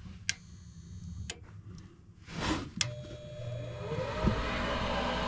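A few sharp relay clicks, then a Goodman furnace's draft inducer motor starts and spins up to a steady whine with rushing air. The furnace is starting a heat cycle once its limit circuit is jumped out.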